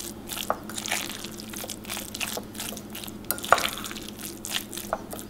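A fork stirring and mashing canned tuna with mayonnaise in a glass bowl: wet squelching with irregular light clicks and taps, one louder tap about three and a half seconds in.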